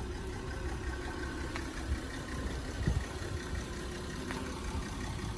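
Volkswagen Passat 3.6 V6 engine idling steadily.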